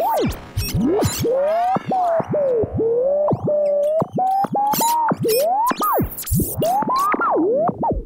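Old analog radio being tuned across the band: whistling tones glide up and down as the dial sweeps past stations, crossed by frequent clicks and crackles of static.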